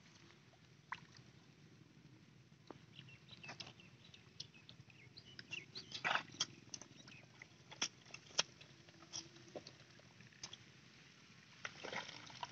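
Bare hands digging and scooping in wet paddy-field mud, with scattered short clicks and wet crackles that cluster about six seconds in. Near the end, water splashes in a plastic basin as a catch is dropped in.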